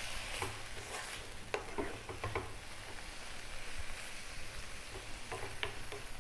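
Shredded kale and onions sizzling in a wok on high heat while a wooden spatula stirs them, with a scatter of short clicks and scrapes of the spatula against the pan.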